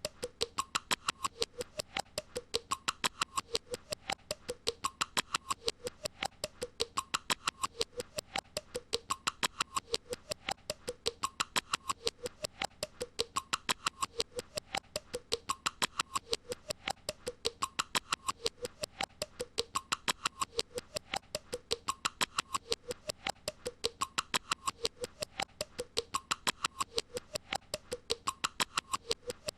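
A short sound looped over and over, repeating about once a second: fast, even clicking, about five clicks a second, with a squeaky tone that swoops up and down.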